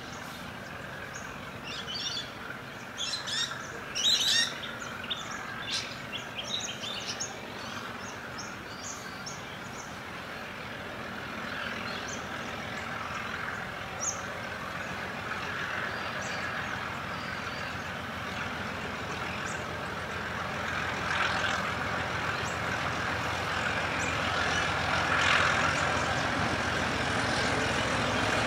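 Birds chirping during the first several seconds, then the rumble of the vintage Alco diesel locomotive 844 approaching with its carriages, growing steadily louder toward the end.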